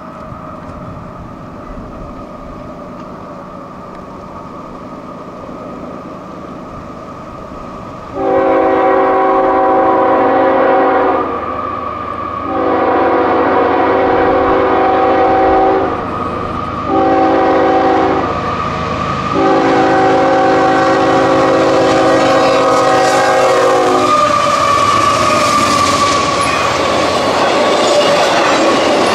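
A CSX intermodal freight train approaches with its diesel locomotives rumbling louder. The lead locomotive's multi-note air horn then sounds the grade-crossing signal: long, long, short, long. As the locomotives pass, wheel-on-rail noise and clickety-clack build.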